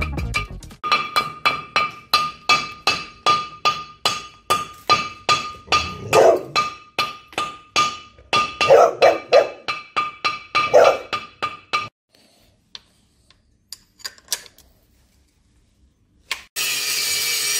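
Fast hammer blows on an old cast-iron car brake disc, about two or three strikes a second, the disc ringing on one steady tone under them; a dog barks a few times in between. The hammering stops about two-thirds of the way through, and near the end an angle grinder starts and runs steadily.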